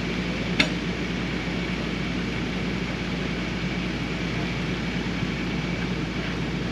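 Rollback tow truck's engine idling steadily, with a single sharp click about half a second in.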